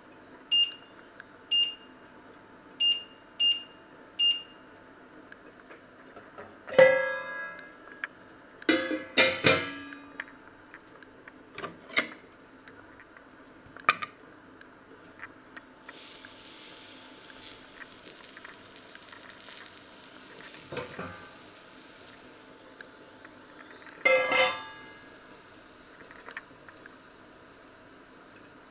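Five short beeps from an electric hob's touch controls as the heat and timer are set. A metal pan lid then clanks and rings, tongs click a few times, and a sausage sizzles in the hot cast-iron grill pan for several seconds before the lid clanks back on.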